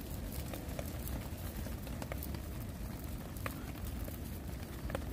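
Light rain in woodland: scattered drips ticking on leaves over a steady low rumble.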